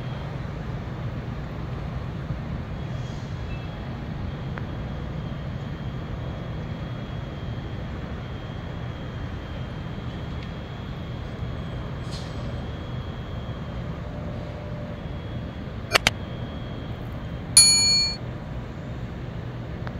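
Steady low rumble of outdoor background noise, broken near the end by two quick clicks and then a short, ringing metallic ding.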